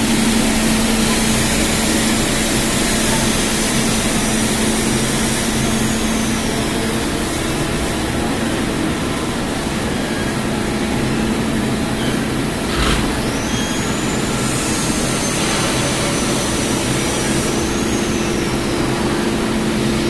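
Steel coil processing line running: a steady machine drone with a low hum as sheet steel unwinds from the coil and passes through the rollers. A high whine rises, holds and falls away twice, and a single clank comes about 13 seconds in.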